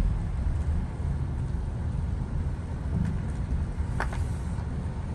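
A car being driven, heard from inside the cabin: a steady low rumble of road and engine noise. There is one short click about four seconds in.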